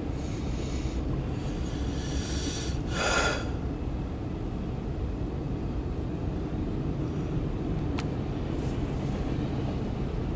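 Empty autorack freight cars rolling past on the rails: a steady low rumble of wheels and cars, with a brief louder rattling burst about three seconds in and a single sharp click near the end.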